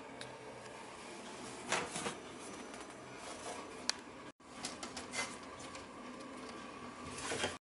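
Light taps and clicks of chikuwa pieces being handled and set down on a food dehydrator's plastic mesh tray, over faint room tone.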